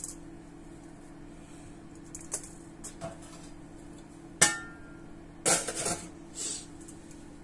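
Metal clatter of an ultrasonic cleaner's stainless wire basket being lifted out and set down on the bench. A few light clinks come first, then about four and a half seconds in a sharp metallic clank with a brief ring, and a rattling scrape a second later, over a steady low hum.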